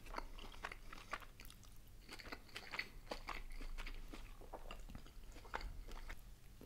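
Close-miked chewing of a dumpling: a steady string of small mouth clicks.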